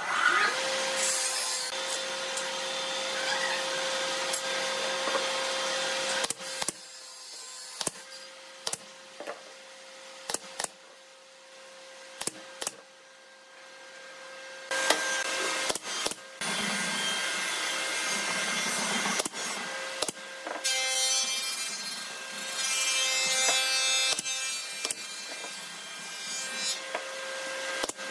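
Workshop power tool running on wood in long steady stretches, with a constant hum under it, and in between a string of sharp single shots, typical of a pneumatic nail gun driving nails into pine.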